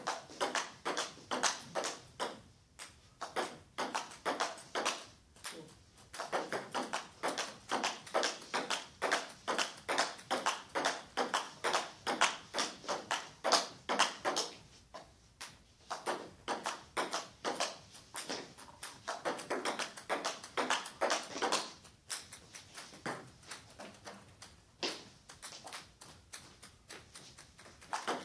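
Table tennis ball clicking back and forth between bats and table in fast, continuous rallies, a steady rhythm of sharp hits and bounces with short breaks every few seconds.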